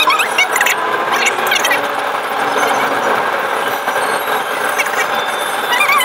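Car engine and road noise heard inside the cabin while driving along a narrow lane, with many short, high squeaks and chirps over the steady noise.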